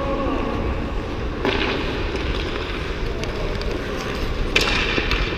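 Hockey skate blades scraping and cutting across ice, with a steady rumble of wind on the microphone; two louder hissing scrapes come about a second and a half in and near the end.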